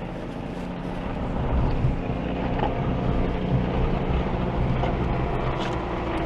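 Off-road 4x4's engine running under load at a steady throttle while crawling over an obstacle, getting louder about a second in and then held.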